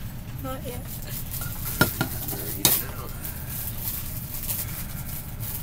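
Fingers scratching and tapping a small handheld compact mirror close to the microphone, with two sharp clicks less than a second apart near the middle.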